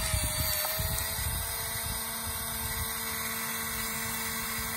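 The built-in motor of a Minolta Riva 35ST compact film camera whirring steadily as it rewinds the film mid-roll, set off by pressing the recessed rewind button while the frame counter counts down. A few light handling knocks come in the first second.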